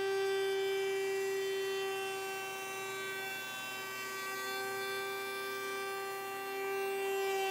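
Router-table router running with a steady high whine while a bearing-guided flush-trim bit trims a hardboard skin flush with the edge of a plywood panel.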